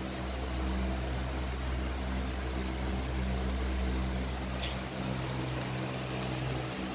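Steady low hum of a small motor with several even tones, its deepest rumble easing off about five seconds in; a brief faint high click about four and a half seconds in.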